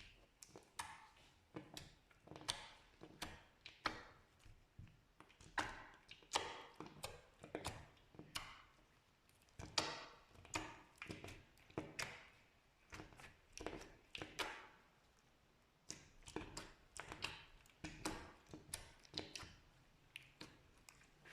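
Slime being pressed and worked, giving irregular sticky clicks and small pops, about one or two a second, with a short pause about two-thirds of the way through.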